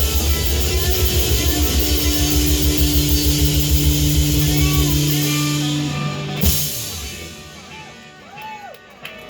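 A live rock band (electric guitar, bass and drum kit) playing the close of a song. It ends on a sharp final hit about six and a half seconds in, and the sound then dies away.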